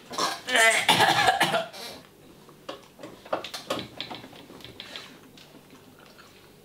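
A person coughing and gagging in a run of loud, rough bursts for about two seconds, then fainter sputters and mouth sounds that die away. It is a reaction to a mouthful of revolting food.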